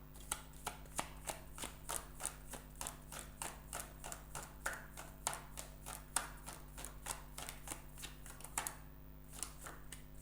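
Tarot cards being shuffled by hand, with a regular patter of card slaps at about three a second and a short pause near the end.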